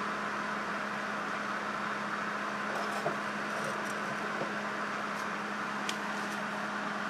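Steady mechanical hum with an even hiss and a low constant tone, with a couple of faint light knocks as the burst tin can is handled and stood on the workbench.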